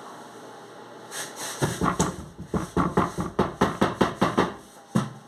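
A small hand towel rubbing briskly in about a dozen quick strokes, about four a second, followed by a single knock near the end.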